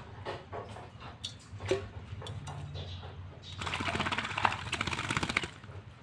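Common hill myna bathing in a water-filled enamel pot: a few scattered splashes and taps, then, about three and a half seconds in, roughly two seconds of rapid fluttering splashing as it beats its wings in the water.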